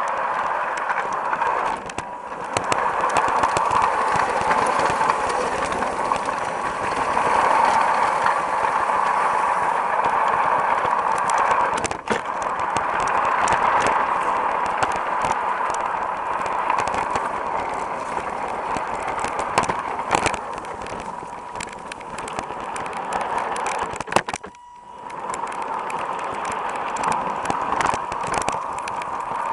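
LGB G-scale Mallet model locomotive and train running along garden track, heard from a camera riding on the train: a steady whir of motor and gears with frequent clicks of the wheels over the rails. The sound drops out briefly near the end.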